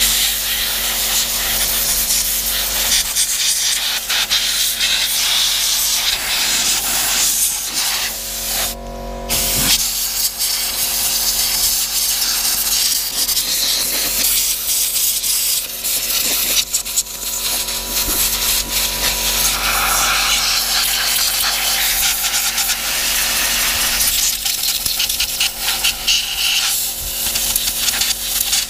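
Compressed-air blow gun blasting a loud, hissing stream of air over a mower engine to clear out dirt and grime, with a short break about nine seconds in.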